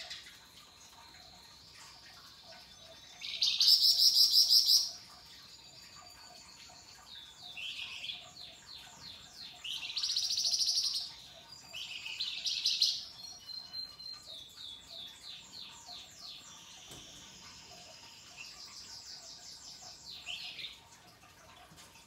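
Caged flamboyan songbird singing in high, rapid trills and chattering phrases, loudest about three seconds in and again around ten seconds, with quieter runs of quick repeated notes between.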